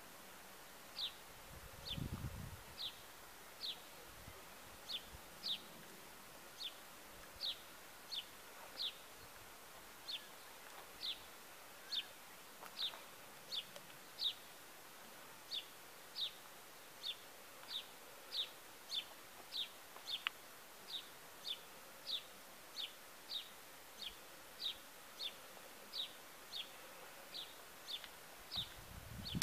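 A bird calling over and over, a short falling chirp repeated about three times every two seconds, with a brief low rumble about two seconds in.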